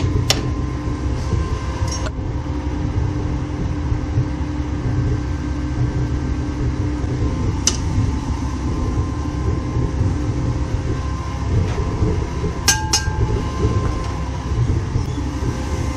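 Gas-fired melting furnace burner running with a steady low rumble. A few sharp metallic clinks sound over it as the steel-framed aluminium casting die is handled and clamped shut, two close together near the end.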